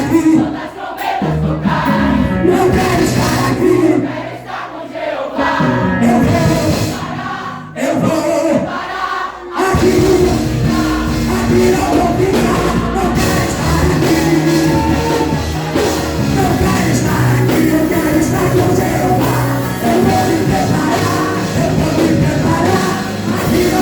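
Live worship band playing with singing: sustained chords and voices, sparser for the first few seconds, then the full band comes back in at about ten seconds.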